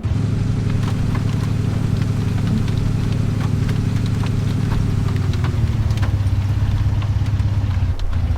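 A vehicle engine running steadily at idle, coming in abruptly, with scattered light ticks over it.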